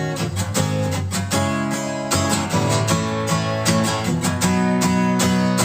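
Acoustic guitar strumming chords in a steady rhythm, with no voice over it.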